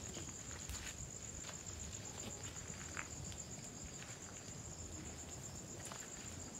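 Night insects trilling steadily in a continuous, finely pulsing high-pitched tone, with a few faint ticks and rustles.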